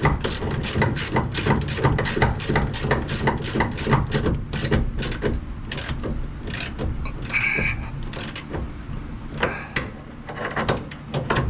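Hand ratchet clicking in fast runs while working a door-hinge bolt, the clicks thinning out about halfway through, over a steady low hum.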